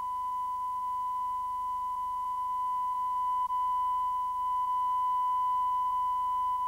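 Steady single-pitch line-up test tone, the 1 kHz reference tone recorded at the head of a videotape under the countdown clock so that audio levels can be set. It dips briefly about halfway through.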